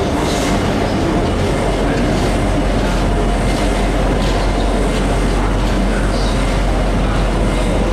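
Freight train hauled by a Class 66 diesel locomotive running past, a loud steady rumble of the train on the rails that keeps on without a break.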